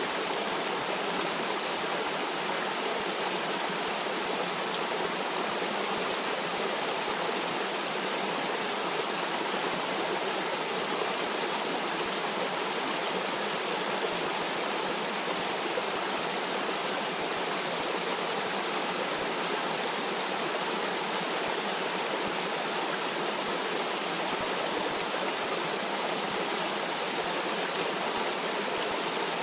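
Stream water rushing steadily, an even, unchanging hiss-like flow with no separate splashes or drips.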